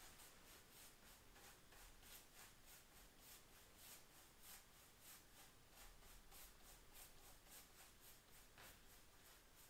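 Faint, rhythmic swishing of a paintbrush stroking paint onto a wooden door panel, roughly three brush strokes a second.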